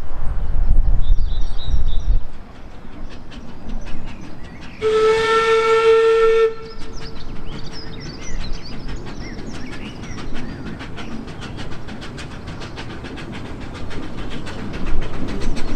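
Narrow-gauge steam locomotive's whistle giving one loud blast of about a second and a half about five seconds in, with a short echo. Under it and after it come the rapid, even exhaust beats of the locomotive working toward the level crossing, growing as it nears. Wind buffets the microphone in the first two seconds.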